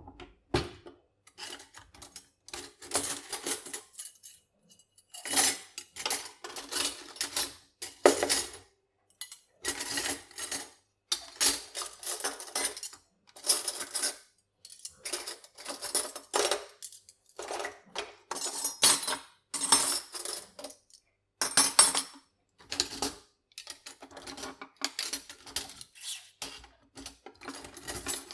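Metal cutlery (forks, spoons and knives) clinking and clattering together in a long string of short rattles with brief pauses between them.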